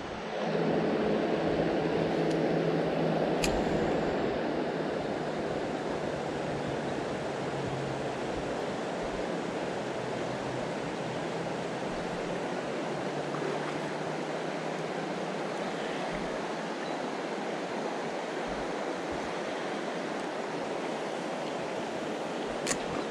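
River water rushing steadily over a shallow, stony riffle.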